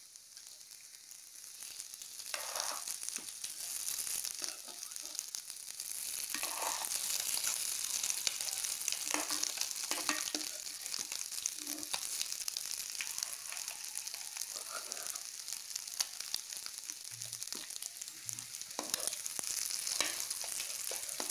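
Boiled eggs and masala paste frying in ghee in a nonstick pan, a steady crackling sizzle that swells over the first few seconds. A steel spoon scrapes the pan now and then as the eggs are turned.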